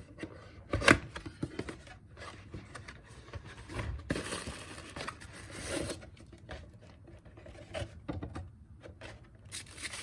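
Packing material rustling and crinkling as a shipping box is unpacked by hand, with scattered small scrapes and a sharp knock about a second in.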